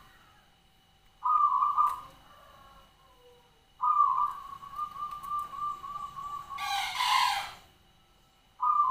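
Zebra dove (perkutut) cooing: a short coo about a second in, then a longer song that opens on a clear note and runs into a fast rolling series of notes. A brief harsh, noisy sound breaks in near the end of that song, and another coo begins right at the end.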